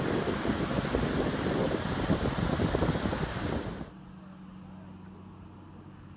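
Wind buffeting the microphone in loud, gusty rushes that cut off abruptly about four seconds in. After that comes a much quieter, steady low hum.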